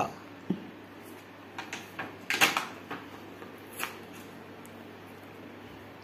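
Clear plastic bag and card toy packaging being handled, crinkling and rustling in several short bursts, the loudest about two and a half seconds in.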